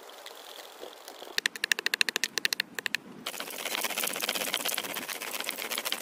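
Wooden stick rubbed hard against a dead log for friction fire-making: fast, even scraping strokes, about ten a second for nearly two seconds, followed by a steady hiss.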